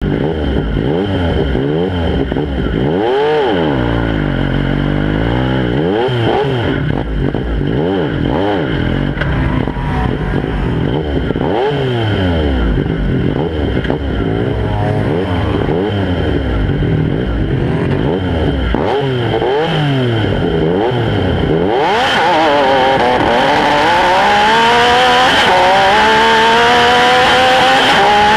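Side-by-side UTV and dirt-bike engines passing close on sand, each note rising and falling as it goes by. About three-quarters of the way through, one side-by-side launches at full throttle in a sand drag, its engine note climbing steadily and growing louder.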